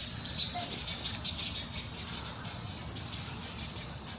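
Insects singing in a high, fast, evenly pulsing rhythm of about eight pulses a second, with fainter higher chirps in the first couple of seconds.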